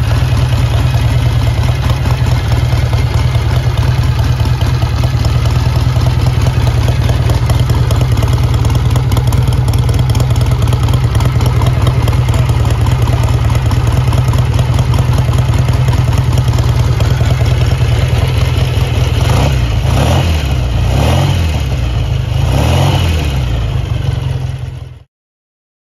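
1960 BSA A10 Super Rocket's 650 cc air-cooled parallel-twin engine running at a steady idle, then blipped on the throttle three or four times near the end.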